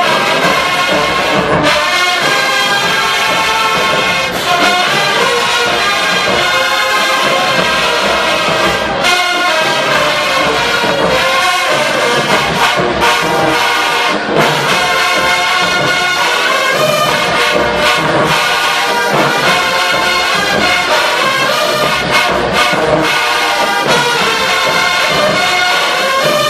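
A marching band playing loudly: a massed brass section of trombones and trumpets holding full chords, with steady percussion hits underneath.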